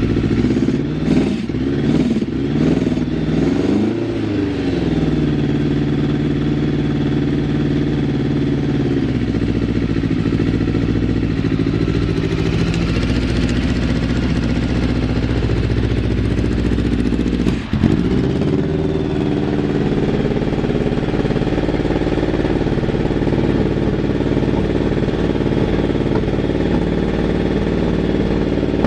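Yamaha FZR750's inline-four engine running, blipped a few times in the first four seconds, then settling to a steady, even idle, with a brief sharp dip about two-thirds of the way through. It idles evenly, with no abnormal noises.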